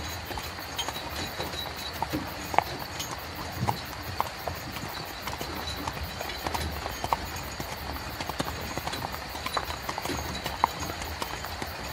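Horse-drawn carriage on the move: a horse's hooves clip-clopping in uneven, irregular knocks over a steady rumbling background.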